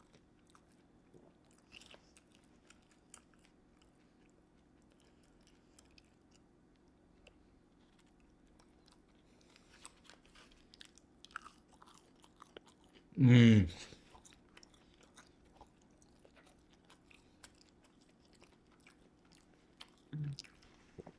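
Close-up chewing of chicken nuggets dipped in Polynesian sauce: faint wet crunches and mouth clicks. One loud hummed vocal sound comes about thirteen seconds in.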